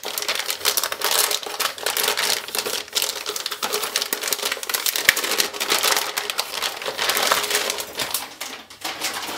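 Metallic anti-static shielding bag crinkling and crackling as a motherboard is pulled out of it, a dense run of crackles throughout.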